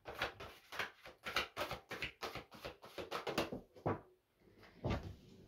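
A deck of oracle cards being shuffled by hand: a rapid run of papery flicks and riffles for about four seconds, then two soft knocks near the end.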